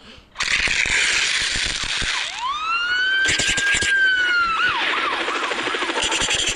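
Cartoon sound effects: a steady hiss, then a whistle-like tone that slides up about two seconds in, holds for about two seconds and falls away.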